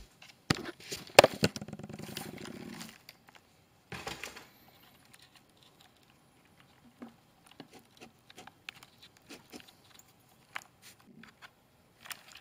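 Handling noise: a clatter of clicks and knocks over the first few seconds, then scattered light clicks and taps as fingers fit the exhaust pipe and silicone coupler onto the header of a stopped nitro RC car engine.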